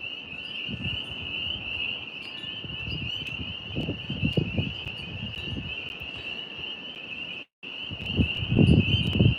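A chorus of tree frogs trilling steadily and high-pitched, with low gusts of wind buffeting the microphone, loudest near the end. The sound cuts out for a moment about seven and a half seconds in.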